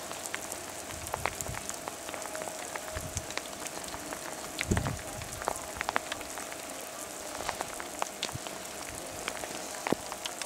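Rain falling, with scattered individual drops ticking sharply at irregular moments, and a low thump about four and a half seconds in.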